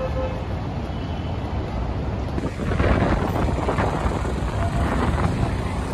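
Wind rumbling on the microphone over outdoor street noise, with traffic passing. About halfway through it changes to a busier, louder street din with many small clicks and knocks.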